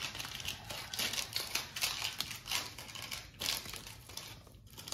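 A stack of 1993 Upper Deck baseball cards being flipped through by hand: irregular papery swipes and flicks as one card slides off another.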